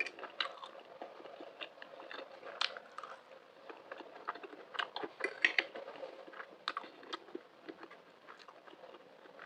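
A person chewing and biting a mouthful of macaroni with green chilies close to the microphone: irregular small wet clicks and light crunches.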